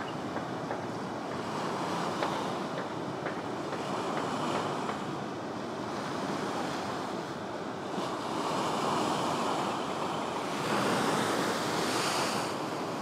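Ocean waves breaking and washing, a steady rushing noise that swells louder about two-thirds of the way through, with wind on the microphone.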